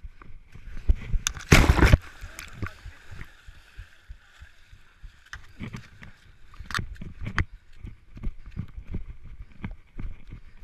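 Water splashing and sloshing as a runner jumps into and wades through a muddy water-filled ditch, with one loud splash about one and a half seconds in. Then come scrambling up the grassy bank and uneven footfalls.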